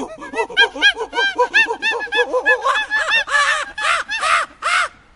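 Birds calling: many short, arched calls in quick succession, several overlapping, with a louder burst of calls late on before they stop just before the end.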